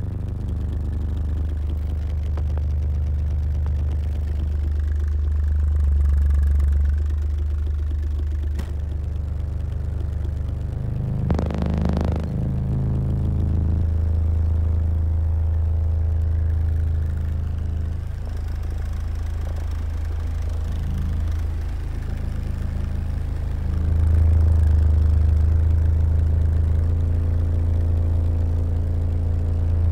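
Car subwoofers (Skar 18-inch, Toro 15- and 12-inch drivers) playing deep bass test tones, heard from inside the car; the tone shifts in level every few seconds. A short burst of noise comes about a third of the way in.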